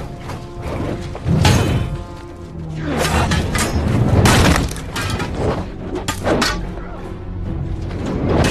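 Film fight-scene soundtrack: music under several sharp clashes and heavy impacts of spear and sword against shields.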